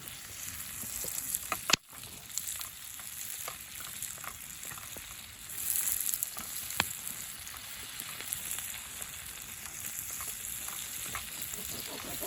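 Food sizzling in a pan over a campfire: a steady hiss with scattered pops and crackles, swelling louder about six seconds in. The sound drops out for a moment just before two seconds.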